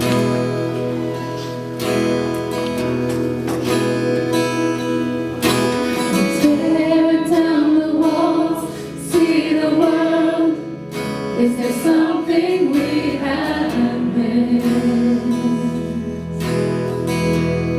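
Worship band playing a song: strummed acoustic guitar over steady sustained chords, with a singing voice carrying a melody from about six seconds in.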